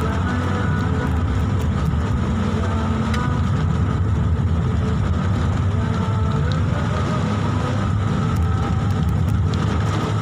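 Toyota Avanza automatic climbing a hill under load: a steady low rumble of engine and wet road noise with a faint steady whine, and scattered ticks of heavy rain on the car.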